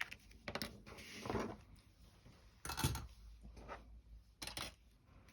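Ribbon and paper being handled while a small bow is tied on a mini paper journal: a run of short rustles and scrapes, with a louder, heavier handling sound about three seconds in.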